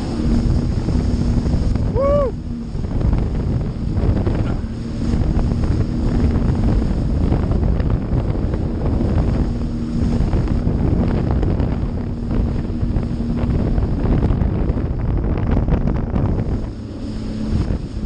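Jet ski running under way: a steady engine hum beneath heavy wind buffeting on the microphone and rushing water. A brief high cry rises and falls about two seconds in.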